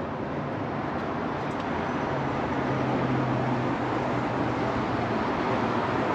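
Steady rushing background noise that grows slightly louder, with a low hum from about two seconds in that fades a couple of seconds later.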